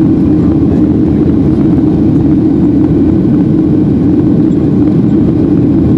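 Boeing 737-800 cabin noise from a window seat over the wing: the CFM56 turbofan engines and airflow in flight make a steady, loud hum with no change.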